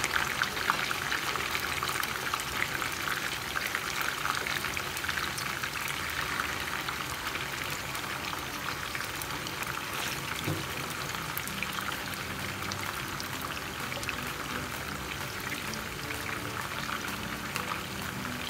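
Raw chicken pieces frying in hot oil in a nonstick frying pan: a steady crackling sizzle made of many tiny pops.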